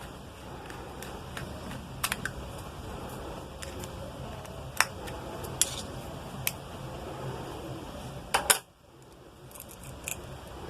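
Scattered small clicks and taps of hard plastic parts as a 6 A three-pin plug top is opened up, with a sharper pair of clicks about 8.5 seconds in.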